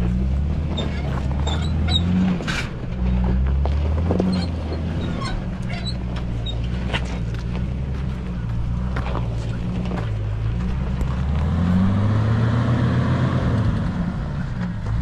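A 2005 Jeep Wrangler Unlimited's 4.0-litre straight-six engine running under load while rock-crawling over large boulders, the revs wavering and rising for a couple of seconds near the end. Scattered knocks and clicks of the tyres and underside against rock.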